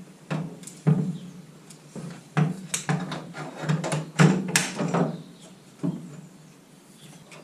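Irregular knocks, clicks and scrapes of a tripod being handled, its legs set and wedged under a car bonnet as a prop, with the loudest knocks about a second in and around four seconds in.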